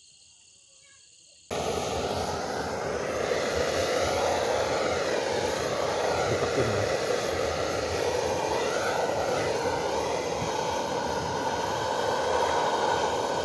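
Crickets chirping faintly, then about a second and a half in a handheld butane gas torch cuts in, burning with a loud, steady hiss as its flame is played into a grill to light the charcoal.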